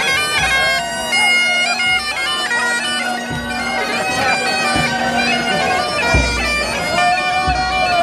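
Highland bagpipes of a marching pipe band playing a tune over their steady drone, with a bass drum thumping about once every second and a half.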